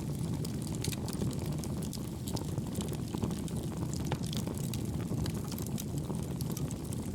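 Wood fire burning in a homemade wood gas stove made from two pail cans: a steady low rumble with frequent sharp crackles and pops of burning wood.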